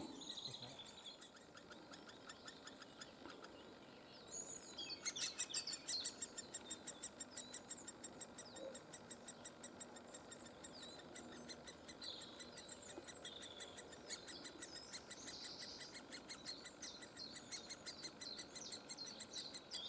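Great spotted woodpecker nestlings calling from inside the nest hole: a faint, fast, steady chatter of short high calls, about four a second, starting about five seconds in. Other small birds sing faintly now and then.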